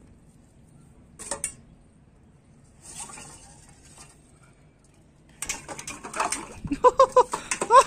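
German Shepherd puppy lapping water from a stainless steel bowl: a quick wet patter of laps starting about five seconds in. Near the end a run of short, high chirps joins in.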